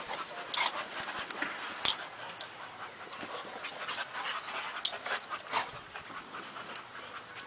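Dogs play-wrestling in sand: a string of short, irregular scuffles and dog noises with no steady rhythm.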